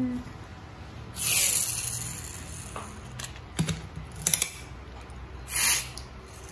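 Small plastic toy race cars handled by hand: two short scratchy whirs, about a second in and again near the end, with a few light plastic clicks in between.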